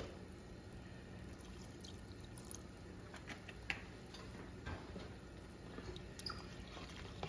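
Milk poured into a pot of creamy shells-and-cheese: a faint liquid pour with scattered small clicks and knocks, the sharpest about three and a half seconds in.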